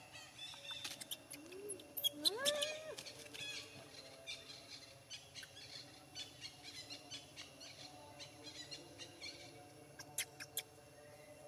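Baby macaque calling: a short whimper about a second and a half in, then a longer coo that rises and holds for most of a second. Scattered small clicks and rustles come from around the monkeys.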